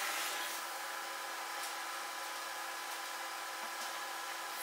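Shop dust-collection system running and drawing air through a large flexible hose: a steady rushing hiss with a constant hum.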